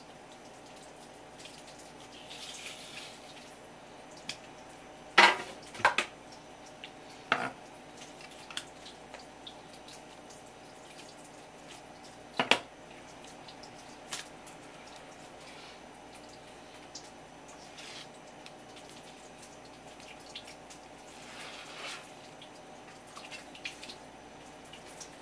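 A kitchen knife knocking sharply on a wooden cutting board several times while a squid mantle is trimmed. Most of the knocks come in a cluster about a quarter of the way through, with one more about halfway. Between them there are soft wet sounds of the squid flesh being handled.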